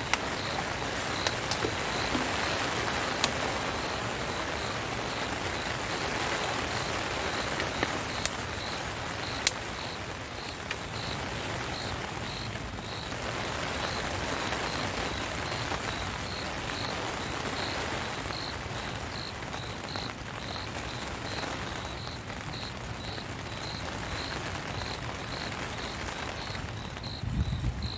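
Steady heavy rain falling, with a high chirp repeating about twice a second behind it. A few sharp ticks come in the first ten seconds, and there is a low thump near the end.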